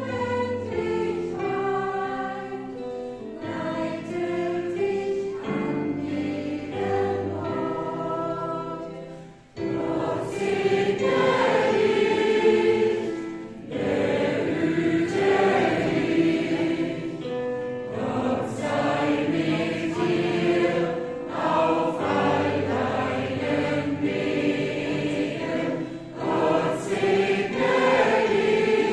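Mixed gospel choir singing in German. The singing is softer for about the first third, breaks off briefly, then comes back louder and fuller.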